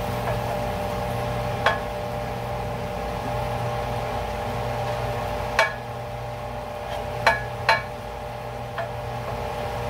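Steady hum of a kitchen fan, with a handful of sharp clicks and knocks of a utensil against a frying pan as fried squash is lifted out to drain.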